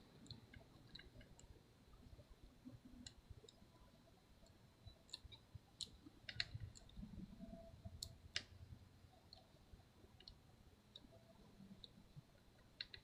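Faint, irregular small clicks and taps of tools and small metal parts as a little bracket is fitted inside an opened MacBook Pro. The clicks come most often a little past the middle.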